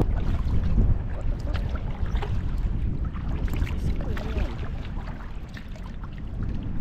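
Wind buffeting the microphone, with small waves lapping and splashing against a sea kayak's hull.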